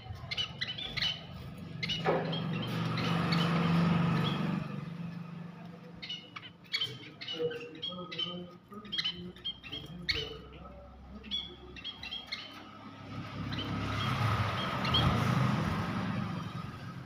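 A small parrot gives many short, sharp chirps and squawks, thickest in the first two seconds and in the middle stretch. Behind it a low rumble swells and fades twice, loudest around the fourth and fifteenth seconds.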